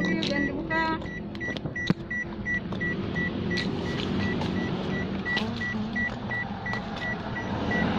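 Electronic warning beeper sounding evenly, about three high beeps a second, over the low rumble of a vehicle.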